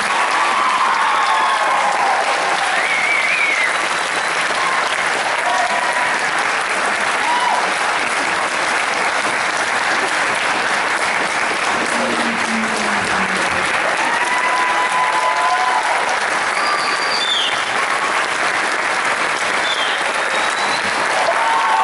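Concert audience applauding steadily, with scattered cheers and whoops over the clapping.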